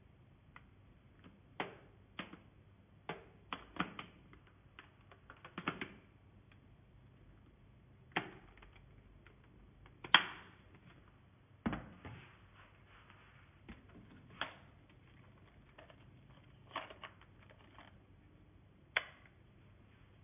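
Hard plastic parts of a cordless handheld vacuum being handled and snapped together: irregular clicks and knocks, the loudest a sharp snap about ten seconds in.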